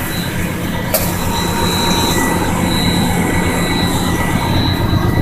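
Truck's diesel engine idling steadily, freshly started after sitting for four days, with a faint steady high whine over the rumble and a single click about a second in.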